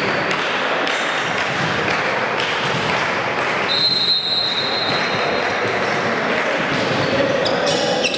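Echoing hall din from spectators and players on a volleyball court, with one steady referee's whistle blast of about two seconds near the middle. A few sharp smacks of the volleyball on the court floor come near the end.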